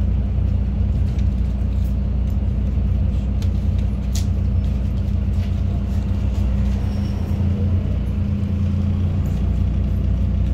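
MAZ-203 city bus engine droning steadily at cruise, with road noise, heard from inside the passenger cabin. A single light click sounds about four seconds in.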